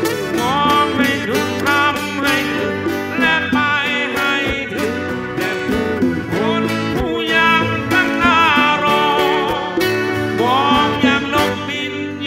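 Live band music, a Thai folk-rock song: acoustic guitars and keyboard, with a melody line over them that slides in pitch.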